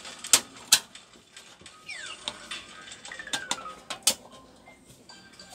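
Sharp clicks and knocks of hard plastic and metal cooler parts as a CPU cooler is worked loose and lifted off a desktop motherboard's CPU socket, with two short falling squeaks in between.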